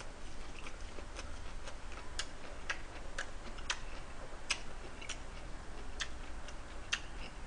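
A person chewing a mouthful of wrapped grilled pork, close to the microphone: a string of soft, irregular wet mouth clicks and smacks, about two a second.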